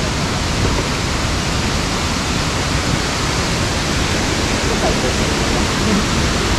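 Waterfall rushing: a steady, even wash of falling water with no breaks.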